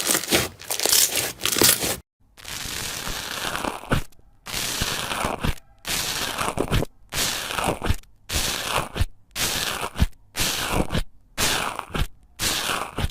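Slime being squished and pressed by hand over and over, in short noisy strokes about one a second, several of them ending in a sharp pop.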